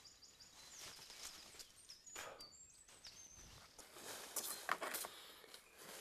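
Faint rustling and handling noises of a climbing rope being worked by hand, a few soft scrapes, with several short, high bird chirps about two to three seconds in.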